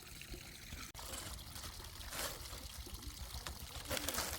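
Water pouring and trickling, with surges of louder pouring about two and four seconds in.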